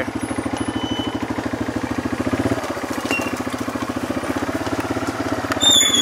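Small off-road vehicle engine running at low speed as it moves along a wooded trail, a steady rapid pulsing putter. A brief high squeal comes in near the end.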